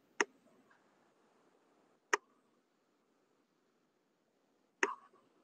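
Three sharp clicks, about two seconds apart, over faint room hiss on a call's audio; the last click has a short tail.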